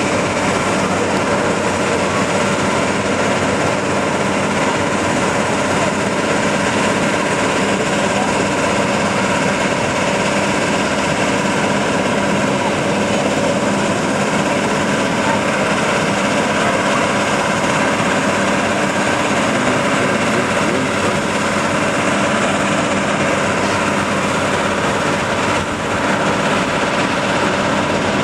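A machine running steadily: a loud, even drone with several constant tones that never change in pitch.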